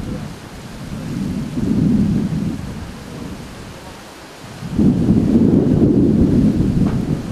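Wind buffeting the camera microphone: a low rumble that comes in gusts, with a short swell about two seconds in and a louder, longer one from about five seconds in.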